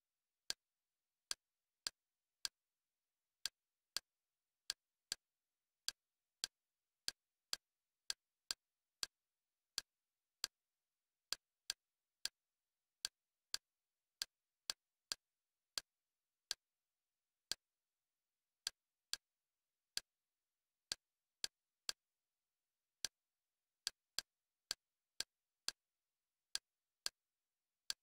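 Kodi menu navigation clicks: single short, sharp clicks at an uneven pace of one or two a second as the selection steps from item to item, with dead silence between.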